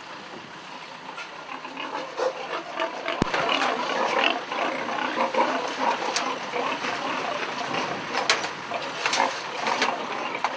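A crowd of pigs squealing and grunting together, with a sharp squeal standing out every second or two.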